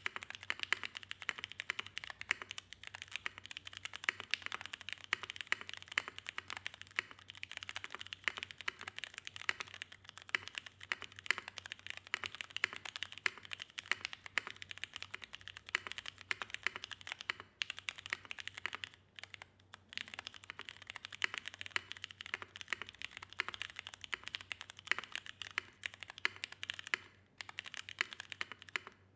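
Fast continuous typing on a gasket-mounted CherryB Neo87 mechanical keyboard with a brass bottom case, aluminium plate, polished Cherry MX Black linear switches, ePBT keycaps and no foam, giving a steady stream of key clacks with a few brief pauses.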